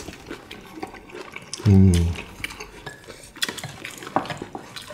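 Table eating sounds: scattered clicks of spoons and chopsticks against bowls and dishes, with wet, liquid sounds of stew. A short vocal sound, like a brief word or hum, comes about two seconds in.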